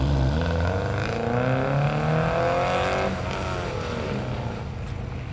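Subaru Impreza's flat-four engine revving hard as the car accelerates away, its pitch climbing for about three seconds, then dropping sharply and running on at lower revs.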